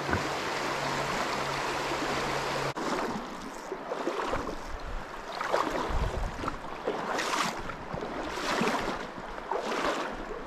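Shallow mountain stream rushing over a riffle. After a sudden cut about three seconds in, it changes to quieter flowing water broken by short splashes about once a second, as of someone wading through the shallows.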